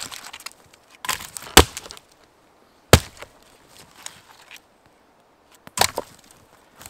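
Hatchet chopping a dead log: sharp, separate strikes of the blade into the wood, two close together about a second and a half in, one about three seconds in and another near six seconds.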